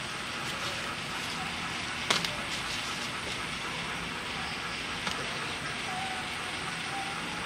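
Steady background hiss with one sharp knock about two seconds in and a lighter tap later, from a banana leaf and cooking utensils being handled on a wooden chopping board.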